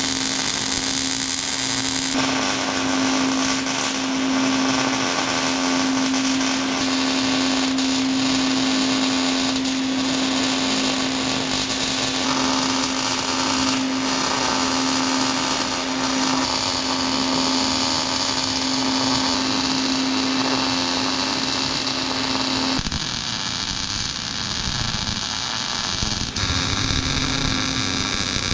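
Electric power tool, most likely an angle grinder, running steadily against steel with a constant motor whine. About five seconds before the end the whine stops and the sound changes to an even hiss.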